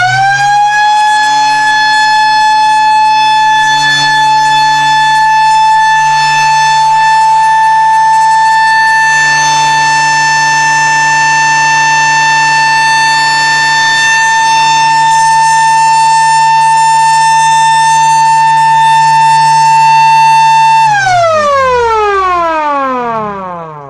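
Small AC mechanical siren: it winds up fast to a loud, steady wail held for about twenty seconds. Near the end its pitch falls smoothly as the rotor coasts down.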